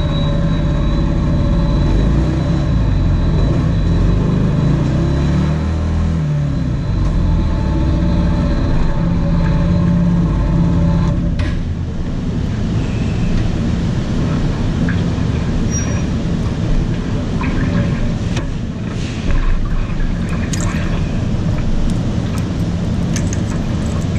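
Small quadcopter's motors and propellers running with a steady drone, heard from a camera mounted on it, dipping briefly in pitch about six seconds in. About halfway through the pitched drone cuts off abruptly, leaving a rough rumbling noise with scattered clicks.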